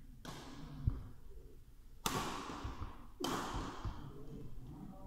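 Badminton rackets striking a shuttlecock during a rally, three sharp hits that echo briefly through the hall, with a dull thud of a footfall about a second in.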